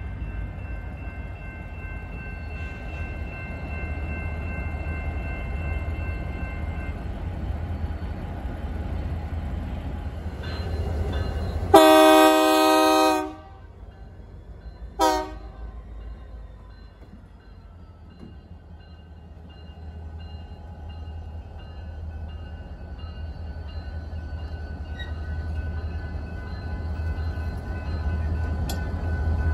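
Diesel freight locomotive running with a low engine rumble during yard switching. About twelve seconds in its multi-chime horn sounds one loud blast of about a second and a half, then a short toot a few seconds later. The engine rumble grows louder near the end.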